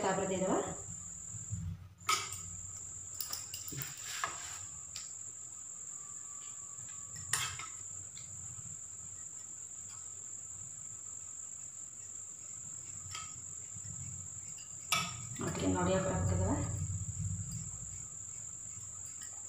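A cricket trilling steadily in a thin, high-pitched tone that breaks off briefly about two seconds in, with a few light clicks of kitchen utensils and a voice for a couple of seconds about fifteen seconds in.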